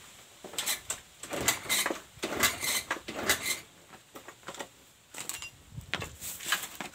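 Honda Vario 110 scooter being kick-started again and again, a clattering burst with each kick about once a second, the engine turning over without catching. With its battery flat and the regulator's charging wire disconnected, the engine will not fire.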